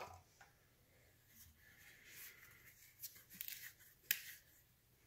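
Plastic funnel being handled and set into a motorcycle oil tank's filler neck: faint rustles and light clicks, with one sharper click about four seconds in.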